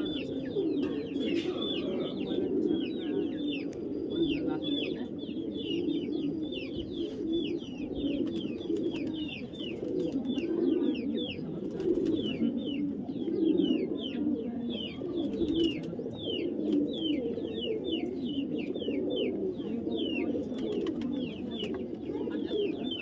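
Pigeons cooing, several overlapping in a continuous low warble, with a steady run of short, high, falling chirps, several a second.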